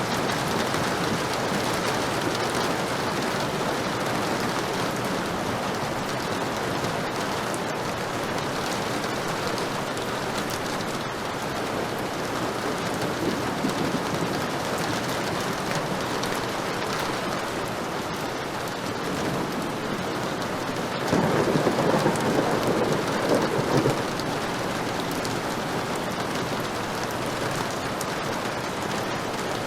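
Heavy rain falling steadily, with a louder rumble of thunder swelling up for a few seconds about three quarters of the way through.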